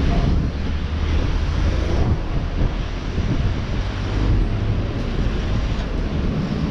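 Wind buffeting the microphone in a steady low rumble, mixed with road traffic passing alongside.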